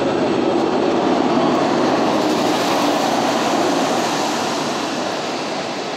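Jet aircraft engine noise at an airport: a steady rumble that swells slightly about a second in and then slowly fades.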